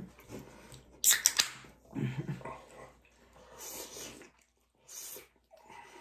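Eating sounds of people eating hot pockets: mouth noises and chewing, a short hummed sound about two seconds in, and soft hissy breaths or sips near the end. A sharp, loud burst of noise about a second in is the loudest sound.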